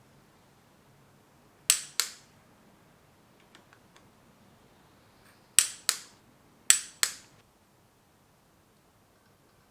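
Click-type torque wrench clicking as the connecting-rod bearing cap bolts of a BMW S54 engine reach torque: three pairs of sharp clicks, each pair about a third of a second apart, with a few faint ticks between the first and second pair.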